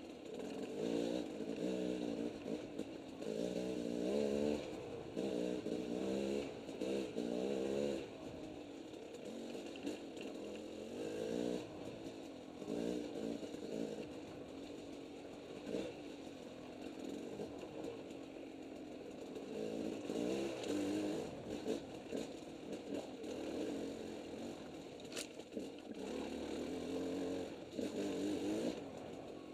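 Two-stroke dirt bike engine under way, revving up and dropping back over and over as the throttle is opened and closed, with the hardest bursts in the first several seconds and again near the end.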